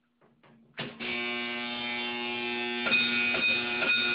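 Vintage Edwards 1303 coded fire alarm system going into alarm after its pull station is pulled. After a click, a steady electric buzz starts about a second in. About three seconds in, the 12-volt AC coded bell begins striking its code, with ringing tones over the buzz. It is a little loud.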